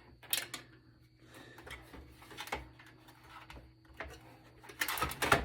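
Scattered clicks and knocks of metal and plastic parts inside a desktop computer case as a stuck component is worked loose, with a louder cluster of rattling clatter near the end.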